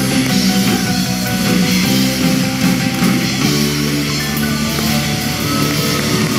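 Instrumental music with sustained chords.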